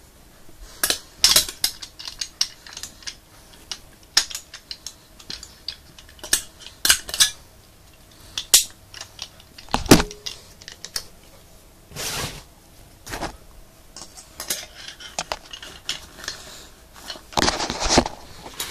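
Metal laryngoscope blades and handle clinking and clicking as they are handled. There is a string of sharp clicks, and about ten seconds in one louder metallic knock rings briefly. Brushing handling noise comes in a couple of times.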